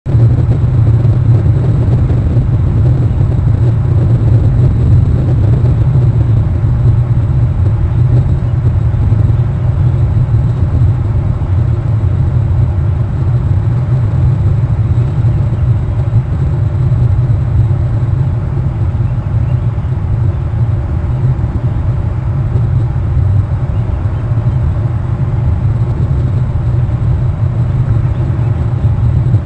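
Steady low rumble of outdoor background noise picked up by a wildlife nest camera's microphone, unchanging throughout, with a faint hiss above it.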